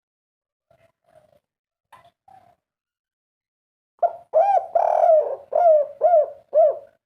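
Spotted dove (tekukur) of the 'kuk 3' song type cooing: a few soft coos in the first half, then a loud run of about six arched coos from about four seconds in.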